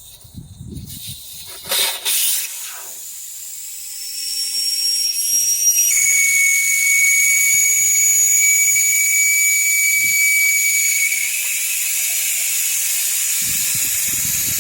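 Air escaping from a car tire through the valve stem as the valve core is unscrewed. A short hiss about two seconds in, then from about four seconds a steady loud hiss with a high whistling tone as the tire deflates.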